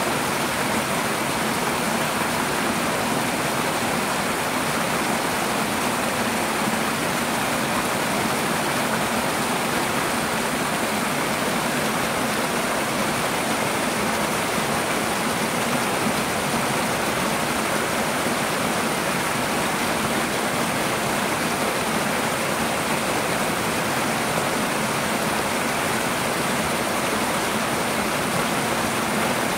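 Two small twin waterfalls pouring over rocks into a shallow pool, a steady splashing rush of water.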